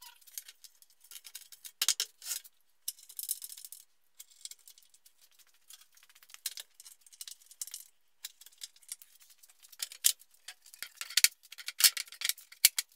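Plywood baseboard panels being handled and laid into a wooden bed frame on a concrete floor: scattered light knocks, clatters and scrapes of wood on wood, with a short scraping slide about three seconds in and the busiest, loudest knocks near the end.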